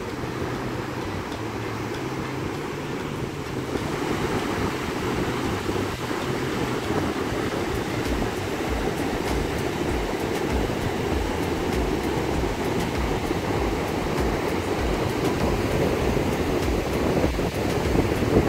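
Surf breaking and washing up a sandy beach, a steady roar with wind buffeting the microphone, growing louder about four seconds in.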